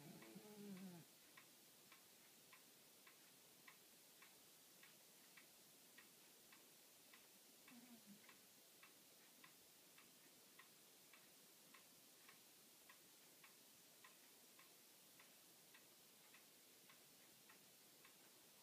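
Near silence, with a faint, regular tick a little under twice a second. A brief low pitched sound comes in the first second, and another short one falls in pitch about eight seconds in.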